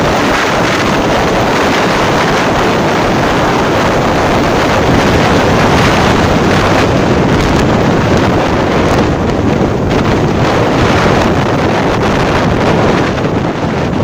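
Loud, steady wind noise buffeting the microphone of a camera riding on a moving motorcycle, with the ride's road noise mixed in.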